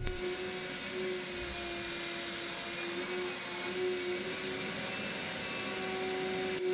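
Steady machine whir with a hum that wavers slightly in pitch.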